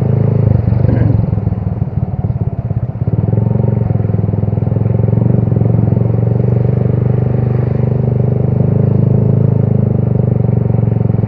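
Motorcycle engine running steadily while being ridden. It eases off briefly about two to three seconds in, then holds an even pace again.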